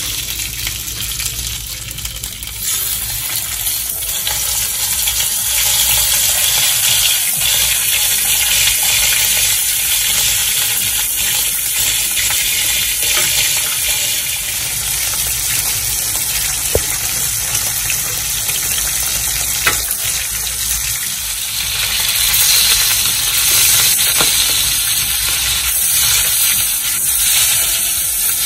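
Beef steak sizzling in hot oil and butter in a frying pan: a steady hiss with a few sharp ticks, swelling a little about two-thirds of the way through.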